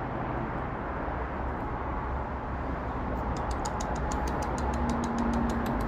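Steady outdoor background noise with a low rumble, like distant traffic. About halfway through, a fast, even run of high ticks starts, about seven a second, and lasts about three seconds.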